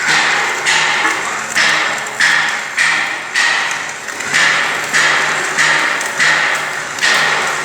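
Hammer repeatedly striking steel, about one and a half blows a second, each blow leaving a short metallic ring.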